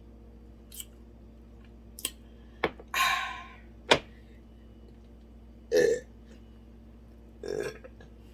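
A woman burping several times in short bursts, with a few sharp mouth clicks or smacks in between, after a big meal.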